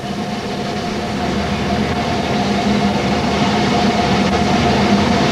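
Steam train sound: a steady rumble and hiss that grows slowly louder, with a faint steady tone running through it.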